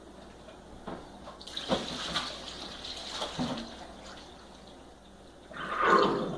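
Water running and splashing in a kitchen sink for about two seconds, then fading. A louder, brief sound comes near the end.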